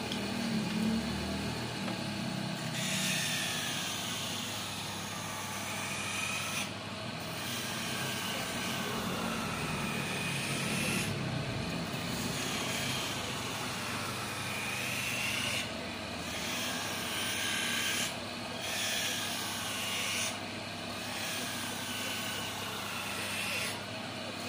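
Optician's hand lens edger running, an eyeglass lens pressed against its grinding wheel in short passes. The grinding note wavers up and down in pitch and breaks off briefly every few seconds as the lens is lifted off the wheel.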